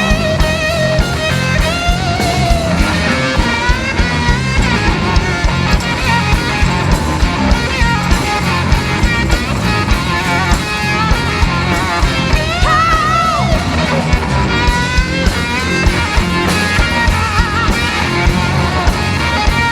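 Live soul-rock band playing an instrumental break: electric guitar lead with bending, vibrato notes over bass guitar and a steady drum beat.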